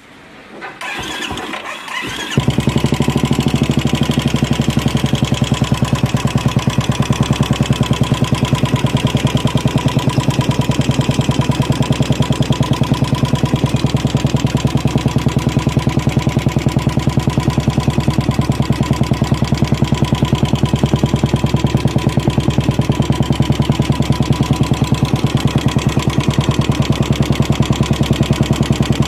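Royal Enfield Bullet motorcycle's single-cylinder engine being cranked and catching about two seconds in, then idling with a steady, even beat. The idle carries the 'tik tik' ticking noise that is the problem being shown.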